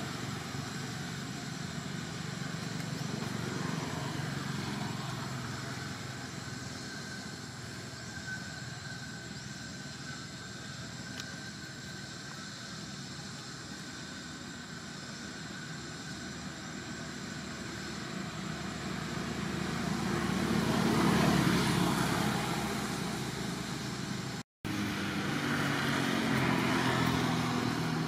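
Steady outdoor background rumble, swelling to its loudest about three-quarters of the way through, then cutting out for a moment near the end.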